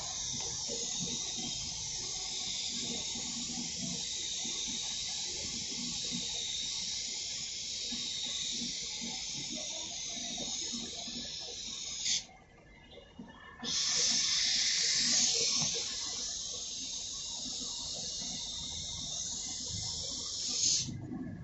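Paint spray gun hissing steadily as it sprays paint onto a car's bodywork. The hiss cuts off suddenly about twelve seconds in as the trigger is let go, resumes a second and a half later, and stops again near the end.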